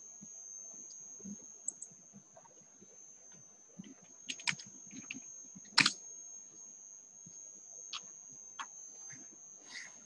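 Scattered small clicks and taps, a few close together about four and a half seconds in and the sharpest near six seconds, over a steady high-pitched whine.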